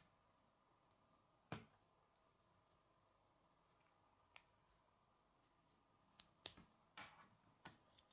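Plastic K'nex pieces clicking as rods and connectors are snapped together and handled: a sharp click about a second and a half in, another past four seconds, and a quick run of several clicks near the end.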